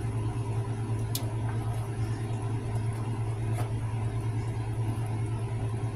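Steady low machine hum from a running kitchen appliance, with two faint clicks, one about a second in and one a little past halfway.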